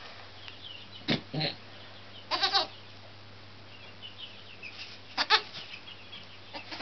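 Goat bleating in a few short calls: a couple about a second in, one near the middle, and a sharp pair just after five seconds, the loudest.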